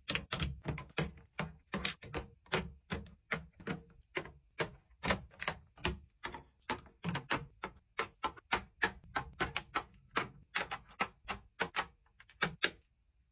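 Plastic and glass skincare bottles and jars set down one after another on shelf trays: a quick, uneven run of clicks and clacks, about three a second, that stops near the end.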